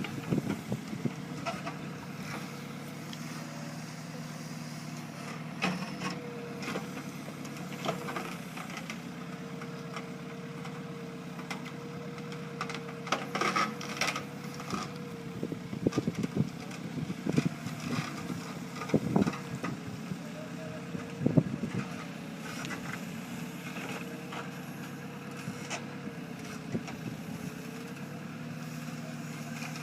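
Heavy construction machine's engine running steadily, with scattered clanks and knocks from the machine at work.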